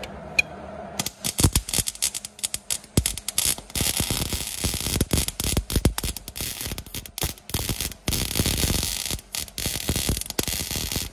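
110-volt MIG welder arc crackling in short, uneven bursts, starting about a second in, as a nut is welded onto a broken exhaust manifold stud.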